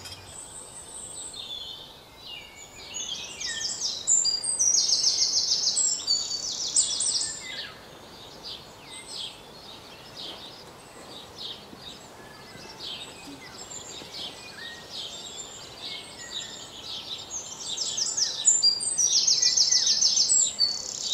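Small songbirds chirping and singing rapid trills, loudest about four to seven seconds in and again near the end, over a steady background hiss.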